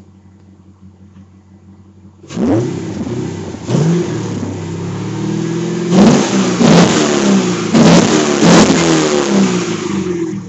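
Holden SS Commodore's 5.7-litre LS1 V8, freshly cold-started, idling quietly and then revved from about two seconds in: two sharp throttle blips, then held higher revs with several more blips, settling back toward idle near the end.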